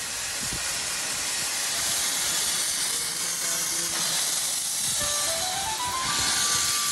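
Steam hissing steadily from a small saddle-tank steam locomotive. About five seconds in, music comes in over it with a rising run of notes.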